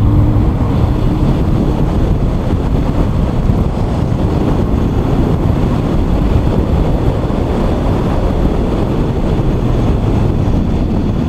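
A 2017 Ford Focus ST's turbocharged four-cylinder engine running steadily under load as the car is driven through an autocross course, heard from inside the cabin with road and wind noise.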